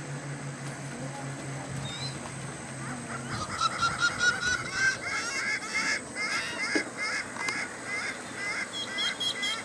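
A flock of birds calling: many short, overlapping calls repeated over and over, beginning about three seconds in. A low steady hum is heard before the calls start.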